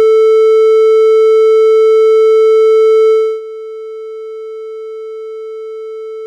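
A steady 440 Hz triangle-wave test tone that drops sharply in volume over about a third of a second, roughly three seconds in, then holds at the lower level. The fade simulates headphones being taken off, to test whether a drop in loudness alone lowers the perceived pitch.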